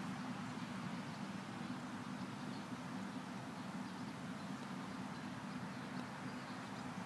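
Steady outdoor background noise with a continuous low hum; no distinct putter strikes stand out.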